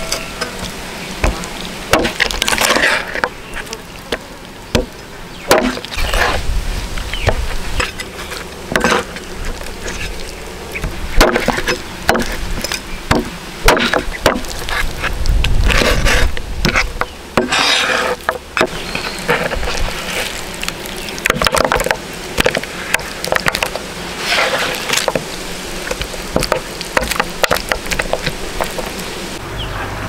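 Meat cleaver chopping raw pork spare ribs on a wooden cutting board: a run of sharp, irregularly spaced chops against the wood.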